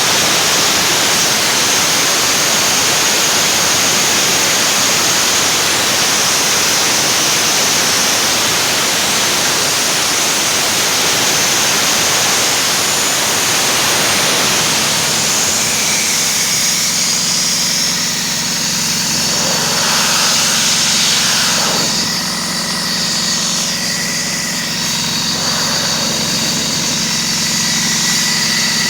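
PKSD-5.25 mobile compressor running after a full overhaul. For about the first half a loud, even hiss covers everything; then, around the middle, it eases and the machine's steady running comes through with a thin high whine.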